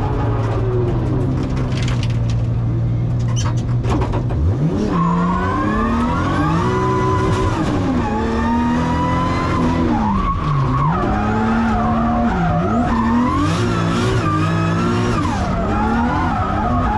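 Toyota Supra Mk4 drift car's turbocharged 2JZ-GTE straight-six, heard from inside the cabin: held at steady revs for the first few seconds, then revving up sharply about four and a half seconds in, its revs rising and falling repeatedly through the drift, with tyres skidding.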